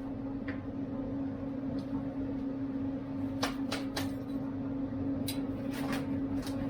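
Steady electrical hum from a switched-on MIG welder, with scattered sharp clicks and taps of handling and no arc crackle.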